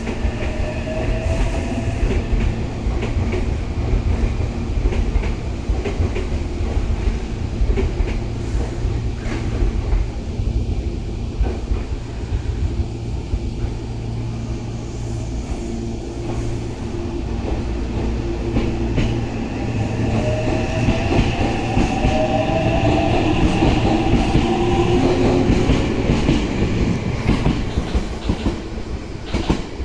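Meitetsu Series 300 electric train humming as it stands at the platform, then pulling away: its inverter-driven traction motors whine, rising in pitch as it picks up speed past the platform, with wheels clacking over the rail joints.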